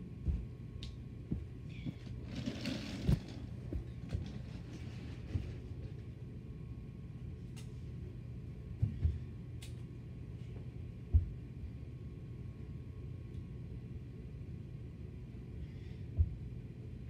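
Handling noise: scattered soft knocks and thumps, with a brief rustling scrape about two to three seconds in, over a steady low hum.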